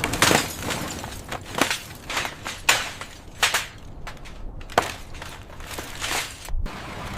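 Demolition noise: an irregular run of about ten crashing, breaking impacts with scraping between them.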